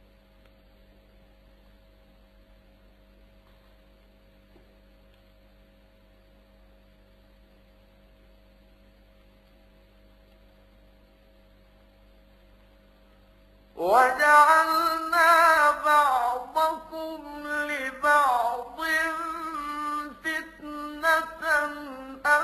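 A faint, steady electrical hum from an old recording, then, about two-thirds of the way in, a man's voice begins melodic Quran recitation (tajweed chanting) with long, ornamented held notes.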